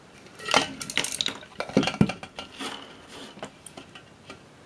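Irregular metallic clicks and knocks of a hand tool on the metal parts of a DVS-10 airspeed transducer as a part is worked loose from the housing. The sharpest knocks come about half a second in and around two seconds in, then thin out to lighter taps.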